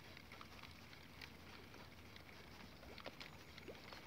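Near silence: faint scattered ticks and patter, with a few faint short rising chirps about three seconds in.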